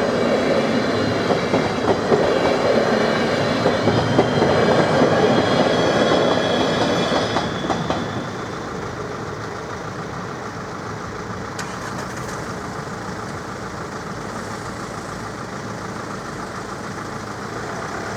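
InterCity passenger train passing over a level crossing, its wheels clacking over the rails. The sound is loud for the first eight seconds or so, then drops off as the train moves away, leaving a quieter steady rumble.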